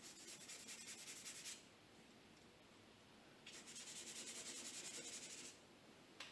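Paintbrush scrubbing oil paint onto paper in two spells of quick back-and-forth strokes, a faint scratchy rubbing: one for about a second and a half at the start, another from about three and a half to five and a half seconds in. A small click near the end.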